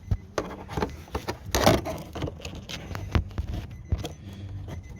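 Irregular clicks, knocks and scrapes of hands working a plastic electrical connector onto a fuel pump module, with one louder clatter about a second and a half in.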